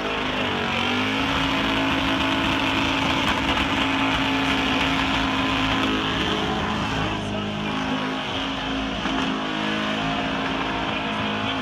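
Burnout car's engine held at high revs on the burnout pad, with a brief dip in pitch about a second in before it climbs back and holds steady.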